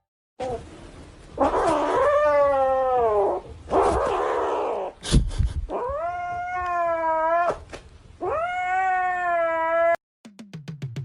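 A domestic cat yowling in about four long, drawn-out warning calls, the pitch sagging and bending within each, with a sharp knock about halfway: a cat growling to guard its toy.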